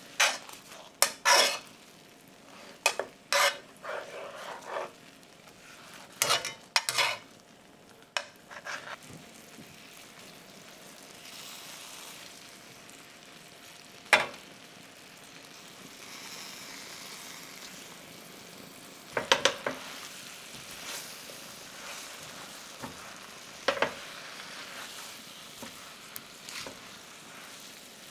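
Cream sauce sizzling and bubbling quietly in a metal frying pan. Metal tongs and a spatula clink and scrape against the pan, in a burst of clicks in the first several seconds and in shorter clusters later, as pork chops are turned and spring greens are stirred in.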